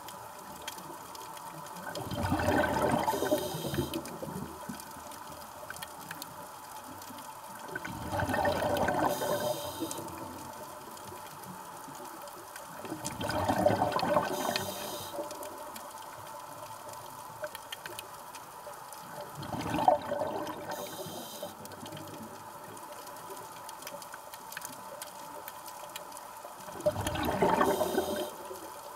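A diver's scuba regulator underwater: five bursts of exhaled bubbles, about one every six seconds, most followed by a brief hiss.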